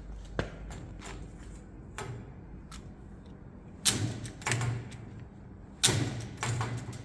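Hand pop rivet gun being worked: a few light clicks, then two pairs of louder metallic clacks about two seconds apart as the handles are squeezed and released to pull a rivet stem.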